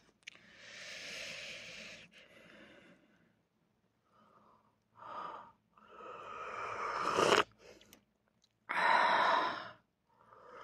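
A person breathing out in several breathy puffs. The first is long, the later ones are shorter, and one swells and stops abruptly.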